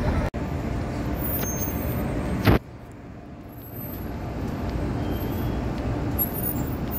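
Street traffic: cars and SUVs passing with a steady engine and tyre rumble, broken by a short loud thump about two and a half seconds in, after which the rumble is quieter and slowly builds again.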